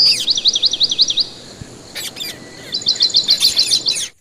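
Bird song in two phrases: a short held high whistle followed by a rapid run of rising-and-falling whistled notes, then after a pause about a second and a half later, another fast run of similar notes.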